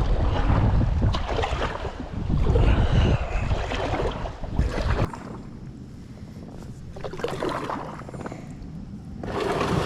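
Wind buffeting the microphone with a heavy low rumble, dropping off suddenly about halfway through, then fainter with another gust near the end.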